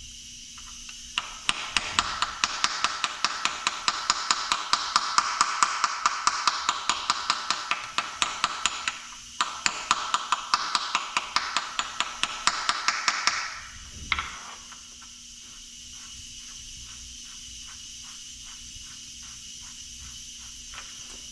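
Rapid, evenly spaced metal-on-metal taps with a ringing tone: a crankshaft seal being driven into place on a Detroit Diesel 2-53. The taps pause briefly about nine seconds in and stop a few seconds later.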